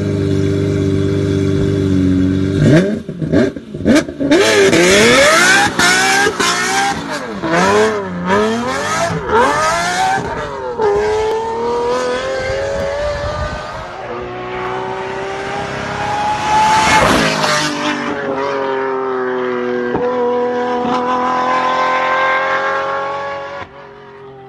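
Lamborghini Murciélago LP670-4 SV's V12 idling, then a few sharp revs about three seconds in and a hard pull-away, the note climbing and dropping back through several gear changes. It then holds a steadier, slowly rising note and fades near the end.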